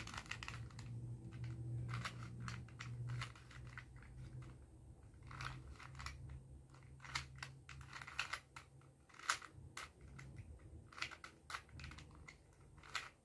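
Plastic 3x3 Rubik's Cube being turned by hand, its layers clicking and clacking in irregular quick runs. A low steady hum sits under the clicks for about the first half.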